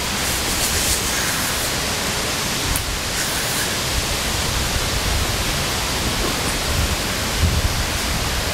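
Steady wind noise through the forest canopy, with irregular low rumbles of wind buffeting the microphone, heaviest near the end.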